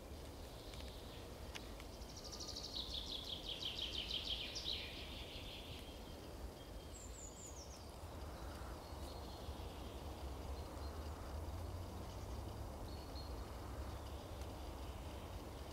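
A songbird sings one fast trill of repeated notes falling in pitch, about two seconds long, over a steady low background rumble; a few short high chirps follow a couple of seconds later.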